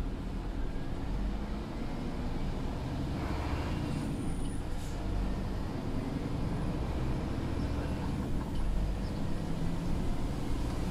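Scania P250 truck's diesel engine running steadily as it drives on a wet road, heard from inside the cab as a continuous low rumble, with a brief hiss about three seconds in.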